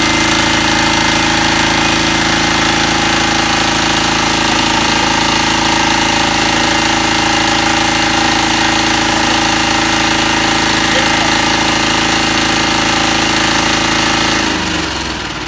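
A 5 kVA ultra-compact diesel generator set running at a steady engine speed, then switched off about a second before the end, its engine note dropping as it runs down.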